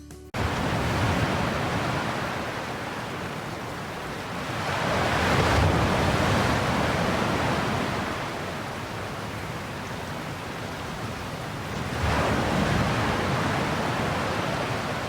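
Ocean waves surging and washing in, a steady rush that swells louder twice, about five seconds in and again about twelve seconds in.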